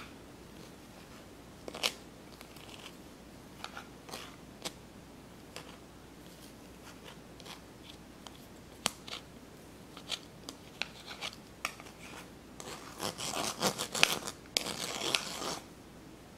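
Spatula pressing and scraping boiled potatoes through a stainless wire-mesh noodle strainer: scattered light scrapes and taps on the mesh, then a denser run of scraping near the end.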